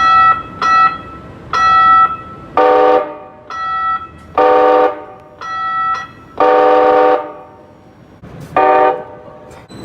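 Calgary CTrain light-rail vehicle sounding its bell and horn in turn: about five bright bell dings, interleaved with four horn blasts, the third the longest.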